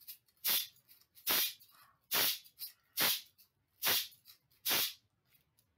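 Small cylindrical hand shaker shaken in a steady beat, six short swishes a little under a second apart, used as the sound of raindrops.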